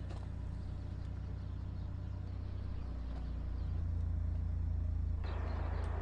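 Car engine and road rumble, a steady low drone that slowly grows louder.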